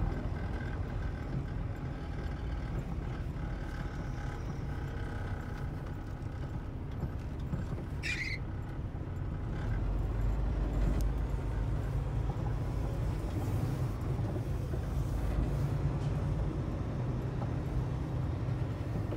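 Semi-truck's diesel engine running at low speed, heard from inside the cab as a steady low rumble that gets louder about halfway through. A short high squeak sounds once, a little under halfway through.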